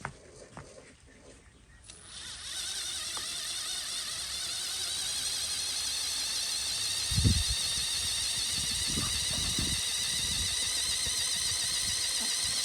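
High-pitched whine of a radio-controlled construction model's electric motor and drive, setting in about two seconds in and running steadily, with a few low thumps partway through.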